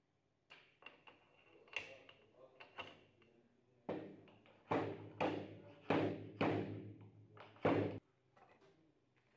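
Metal parts of a motorcycle front fork knocked together as a bush is worked onto the chromed fork tube: a few light clicks, then about six sharp knocks with short ringing, which stop abruptly near the end.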